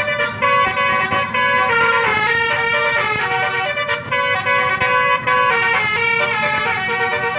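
A bus's basuri multi-tone telolet horn playing a tune, stepping from note to note with several tones sounding together, loud and without a break.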